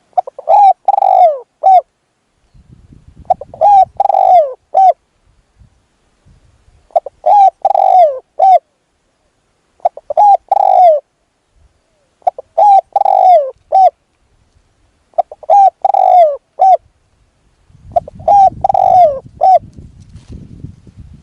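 Spotted dove cooing: seven repeated phrases of three or four low coos each, about every three seconds. A low rumbling noise sits under the second phrase and again near the end.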